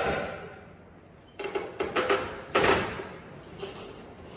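Forcible-entry tool working a steel training door: a metal clang rings and fades, then creaks and knocks as the bar pries at the door, with a sharper ringing hit a little past halfway.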